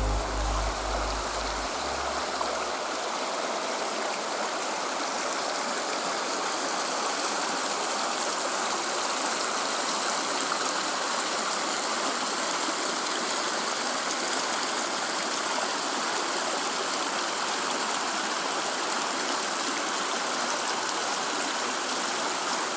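Mountain stream rushing steadily over rocks, an even wash of water noise. Background music fades out in the first few seconds.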